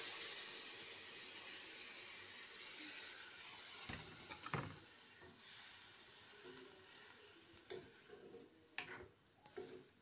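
Sizzle of hot water hitting a chicken and potato curry in a hot metal kadai. The hiss is loud at first and fades away, and a ladle knocks against the pan a few times.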